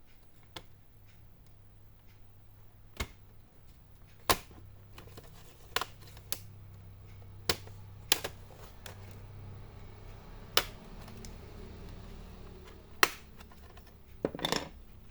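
Plastic snap clips of an Asus X452E laptop's casing clicking loose one after another as the case is pried open with an opener tool: about ten sharp clicks at irregular intervals, over a low steady hum.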